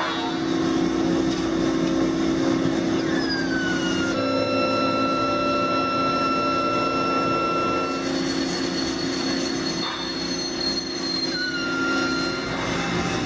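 Factory machinery running with a steady hum. High squealing tones slide down in pitch and then hold, once about three seconds in and again near the end.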